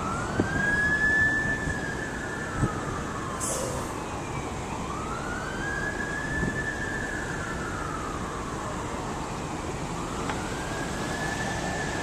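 Fire engine siren sounding a slow wail: three cycles, each climbing in pitch over about a second and a half and sliding down over about three seconds.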